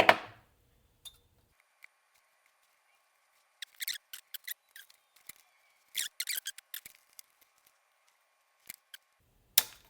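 Sharp clicks and snips from small hand tools working the wire leads of a capacitor being fitted to a circuit board: two quick bursts a couple of seconds apart, then a single louder snip near the end.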